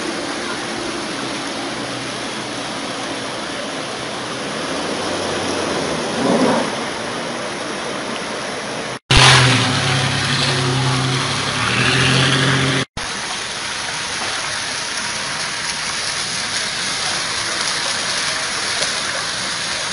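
Floodwater rushing and splashing through a street, a steady noisy rush. It cuts out abruptly twice, and between the cuts a steady low hum sits under the water noise for a few seconds.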